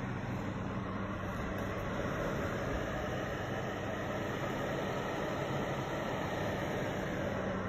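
COMLIFE fan heater running steadily: a constant rush of blown air over a low, even motor hum.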